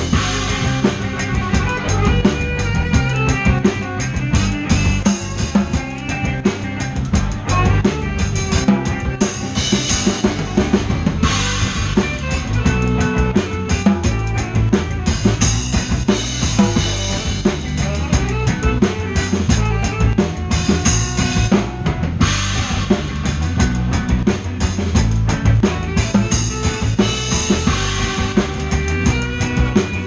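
Live ska-punk band playing, the drum kit loud and close with kick, snare and cymbals driving a fast beat under electric guitar, bass and saxophone.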